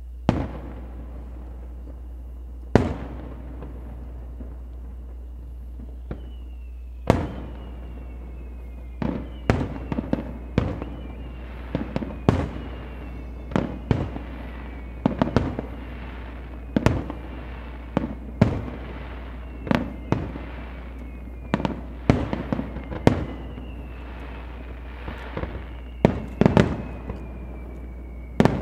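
Aerial fireworks shells bursting, each bang followed by an echoing tail: a few widely spaced at first, then coming thick and fast, sometimes several a second. A thin high whistle that slowly falls in pitch sounds behind the bursts, over a steady low hum.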